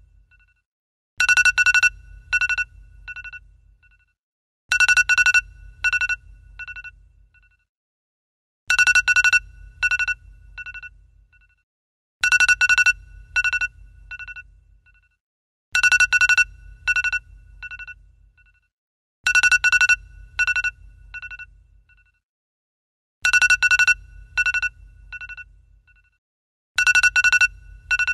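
An iPhone ringtone ringing over and over, about eight times: each ring is a quick cluster of bright, high chimes that fades away in a few softer repeats, with a short silence before the next.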